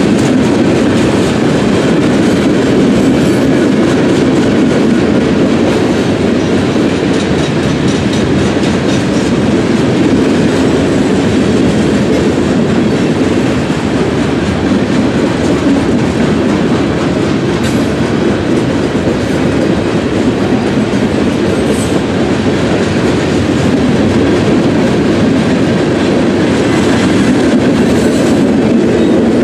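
Kansas City Southern freight train's boxcars rolling past, loud and steady, with steel wheels running on the rails.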